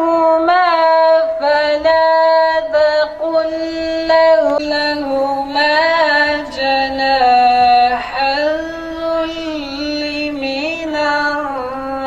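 A young man's voice reciting the Quran in Arabic in melodic tilawat style, with long, drawn-out notes and gliding ornaments, heard through a podium microphone and PA.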